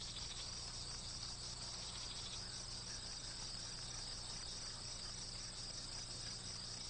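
Crickets chirping steadily in a continuous, finely pulsing chorus, over a faint low hum.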